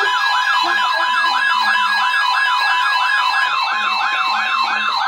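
Electronic emergency-alert siren sounding for a Special Marine Warning: a rising whoop repeated about four times a second over a steady high alert tone.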